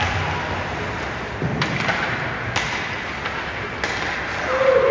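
Ice hockey arena ambience during play: a steady hall murmur with a few sharp clacks of sticks and puck on the ice, and a held voice-like call rising near the end.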